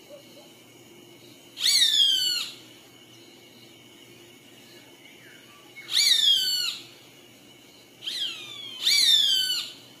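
Roadside hawk screaming four times, each a harsh, drawn-out call sliding downward in pitch and lasting under a second. The last two calls come close together near the end, the first of them short.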